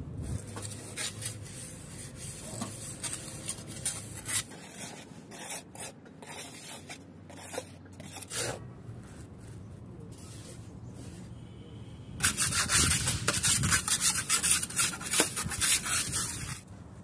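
A hand trowel scraping and rubbing wet cement mortar into a slab mould, in irregular strokes, then a louder run of quick scraping strokes from about twelve seconds in that stops suddenly near the end.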